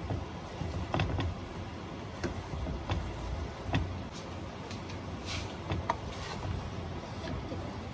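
Utensil stirring sotanghon and canton noodles in a cooking pan: scattered light taps and clicks over a steady low hum.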